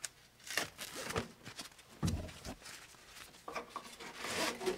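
Handling noise from a webbing battery strap being pulled over a battery and cinched in a wooden battery box: scattered light clicks and knocks, a dull thump about two seconds in, and strap rustling near the end.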